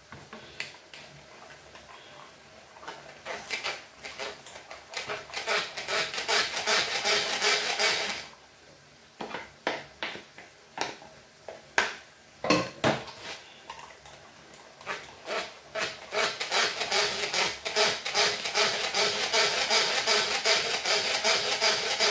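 Hand-cranked rotary food mill pressing boiled potatoes into purée: its metal blade scrapes and clicks against the perforated disc in quick repeated strokes as the crank turns. In the middle the strokes give way to a run of separate knocks before the quick cranking starts again.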